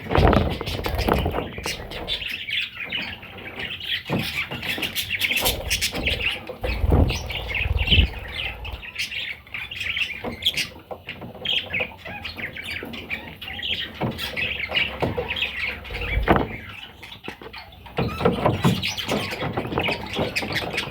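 Budgerigars chirping and chattering continuously, with scattered clicks and a few dull thumps.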